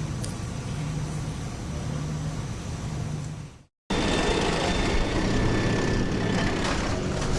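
Steady background noise with a low hum, cut by a brief drop to silence a little over halfway through, then steady background noise again.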